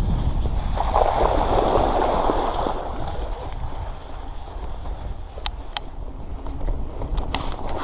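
Bicycle tyres splashing through shallow water for about two seconds, then rolling on over gravelly ground with a steady low wind rumble on the microphone. A few sharp clicks come in the second half.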